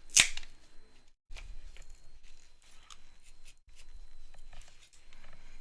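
A pry tool scraping under the glued battery cells of a MacBook Pro A1502, with irregular scratchy crackles as the alcohol-softened adhesive lets go. One sharp click just after the start is the loudest sound.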